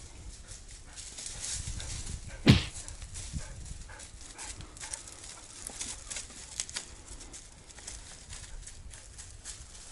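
Footsteps crunching through dry leaf litter and twigs, irregular and uneven, with one short, loud sound about two and a half seconds in.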